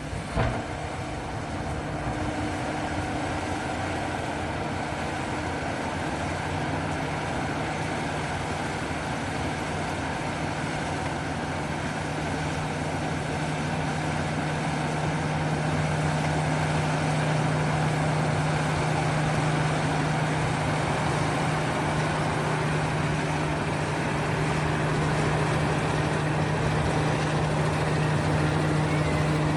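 Engine of heavy road-construction machinery running steadily with a low, even hum. There is a brief knock about half a second in, and the sound grows a little louder about halfway through.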